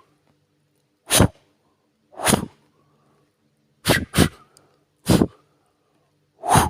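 Short puffs of breath blown onto a surface, six in all, spaced about a second apart with a quick pair in the middle.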